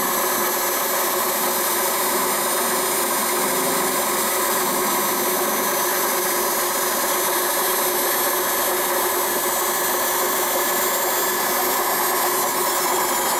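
Homemade lathe running steadily under its electric motor, a constant hum and whine, while the cutting tool takes a light pass along a spinning metal workpiece.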